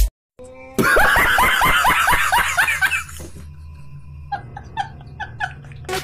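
Laughter sound effect: a burst of fast, repeated laughing starts about a second in and lasts some two and a half seconds. After a short pause comes a second, quieter run of chuckles.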